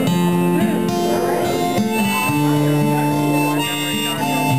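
Harmonica in a neck rack played over a strummed acoustic guitar, long held notes that change pitch every second or so.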